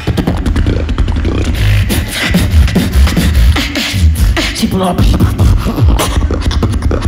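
Beatboxing into a handheld microphone, amplified: steady deep bass kicks under dense sharp snare and hi-hat-like clicks, with a short rising pitched sound about four to five seconds in.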